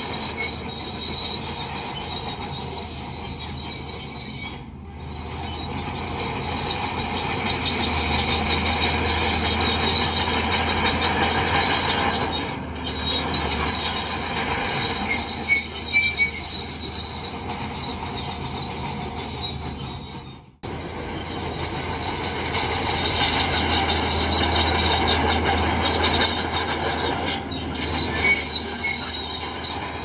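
Crawler bulldozer working loose rock fill: its steel tracks squeal and clank steadily over a low diesel engine drone. The sound breaks off for an instant about two-thirds of the way through.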